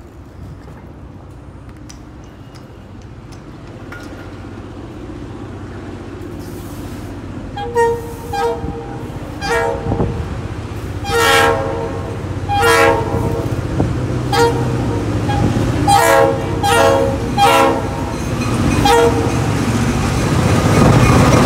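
Approaching diesel freight locomotive sounding its chord air horn in about ten blasts of varying length, with one longer blast near the middle. Under the horn, the locomotive's engine rumble grows steadily louder until it passes close by at the end.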